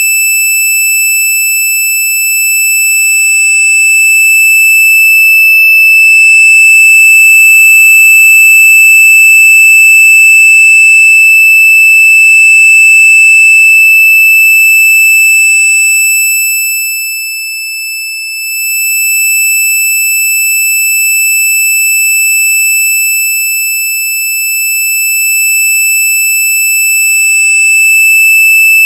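Very loud, steady high-pitched electronic tone held at one pitch, with fainter higher overtones; it dips briefly in loudness a little past the middle and comes back.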